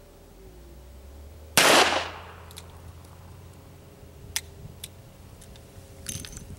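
One shot from a 1961 Smith & Wesson Model 10-3 .38 Special revolver fired single action, with a short echo off the range. A few light clicks follow, and near the end comes the metallic rattle of the cylinder being swung open.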